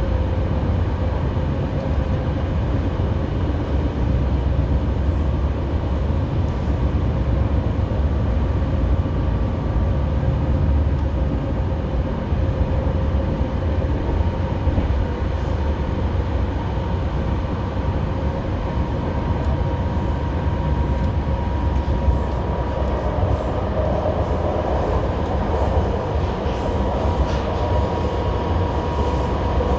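A BART train heard from inside the passenger car while running at speed: a steady low rumble of wheels on rail, with a steady whine in it. In the last several seconds the noise grows harsher as the train heads underground toward the Transbay Tube.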